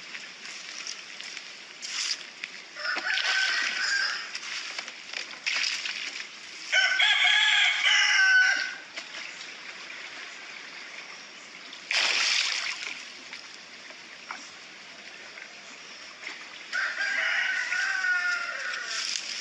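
Roosters crowing three times; the second crow, about seven seconds in, is the loudest, and the last trails off falling in pitch near the end. A short hissing burst comes about twelve seconds in.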